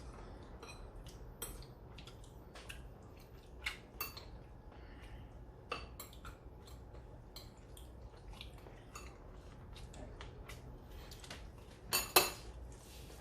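Eating utensils clinking against dishes at a table meal: scattered light clicks and taps, with a louder clatter about twelve seconds in.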